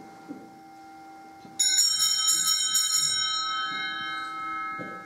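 Altar bells, a set of small sanctus bells, shaken about a second and a half in: a burst of quick, bright ringing for about a second that then fades away. This is the consecration bell rung at the elevation of the host.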